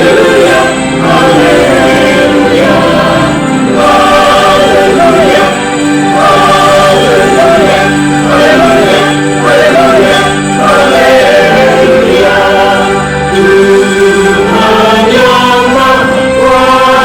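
Church choir singing a hallelujah anthem in full harmony, holding chords that change every second or so.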